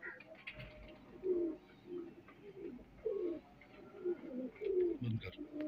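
Domestic pigeons cooing, a run of low swooping coos one after another.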